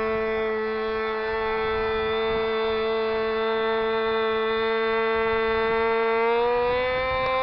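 Radio-controlled model airplane's motor and propeller running steadily, its pitch rising a little about six seconds in.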